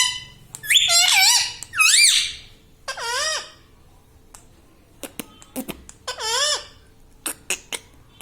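Ring-necked parakeet giving a run of short, high, squeaky calls, each dipping and then rising in pitch. The calls come in a burst, then about two seconds of quiet, then another call among a few sharp clicks.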